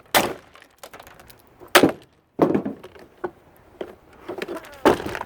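Hammer blows on the plastic housing of a combo shop vac and pressure washer, about four hard strikes a second or more apart with smaller knocks between, bashing it open because its screws would not come out.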